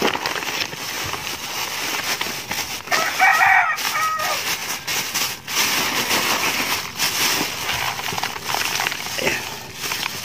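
Granular fertilizer pouring out of a plastic bag into a woven plastic sack, with steady rustling and crinkling of the plastic and the hiss of the granules. A rooster crows once about three seconds in, the loudest sound.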